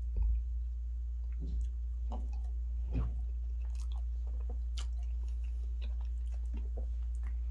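Close-miked eating of fufu and turkey stew: chewing with wet mouth clicks and smacks, and a few louder soft thumps in the first three seconds, over a steady low hum.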